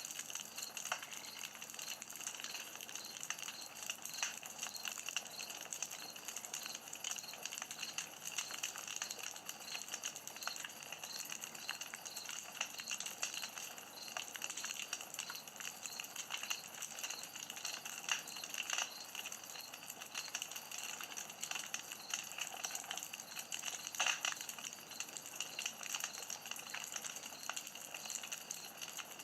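Campfire burning with a steady hiss and irregular crackles and small pops of burning wood.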